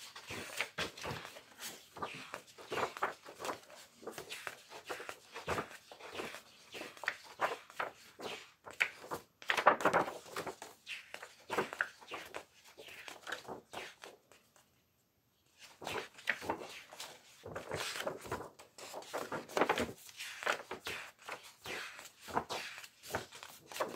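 Paper pages of a colouring book being turned one after another, a steady run of short rustles and flaps, with a silent pause of about a second and a half a little past the middle.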